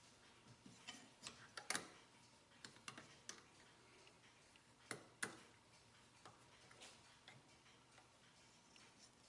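Faint, irregular light clicks and taps of small metal parts being handled and set in place, as a digital dial indicator and its holder are positioned against a lathe tool block. The clicks come in a loose cluster in the first few seconds, with a sharper pair about five seconds in.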